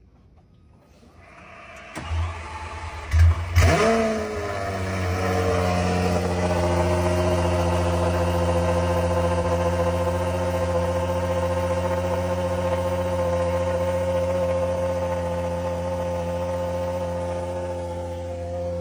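Lamborghini Aventador SVJ's V12, fitted with a Gintani exhaust, cold-started: a brief whir as it cranks, the engine catches with a sharp flare of revs, then drops and settles into a steady, loud high cold idle.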